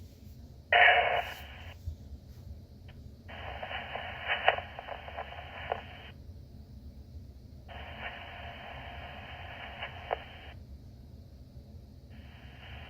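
Fire department two-way radio channel heard through a scanner: several keyed-up transmissions of narrow-band static and hiss with no clear speech, each starting and cutting off abruptly. A short, loud burst comes about a second in, two longer stretches of about three seconds each follow, and another starts near the end.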